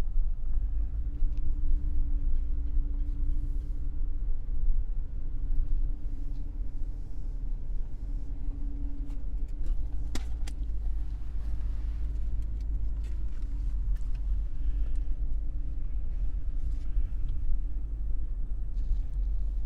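Car driving slowly, heard from inside the cabin: a steady low engine and road rumble with a faint steady hum, and a single sharp click about ten seconds in.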